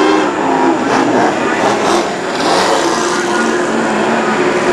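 Racing powerboat engine running flat out as the boat speeds past, a steady drone under a broad hiss.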